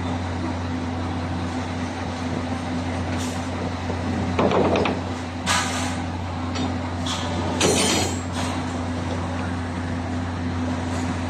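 Diesel engine of a concrete mixer truck running steadily, broken by a few short, loud bursts of noise around the middle.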